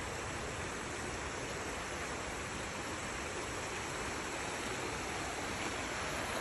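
Shallow creek rushing over rocks in a riffle, a steady even rush of water.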